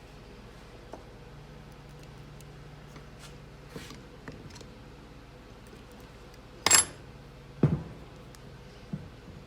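Small metal objects clinking on a workbench: a few light handling clicks, then a sharp ringing metallic clink about two-thirds of the way through, a duller knock a second later and a lighter tap near the end.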